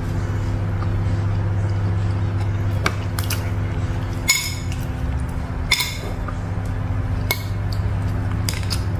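Metal spoon clinking against a ceramic dish four times, about a second and a half apart, while scooping and pouring gravy, the middle two clinks ringing loudest. A steady low hum runs underneath.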